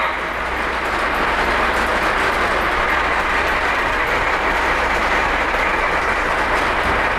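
O-gauge model trains running on the layout's track: a steady, even rolling rattle of wheels on rail with no let-up.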